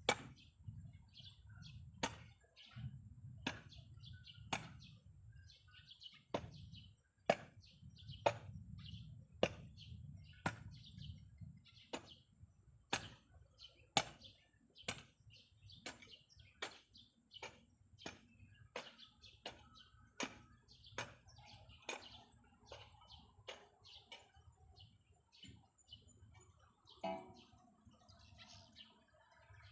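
A steady series of sharp strikes or clicks, about one a second at first and quickening to nearly two a second, with birds chirping around them.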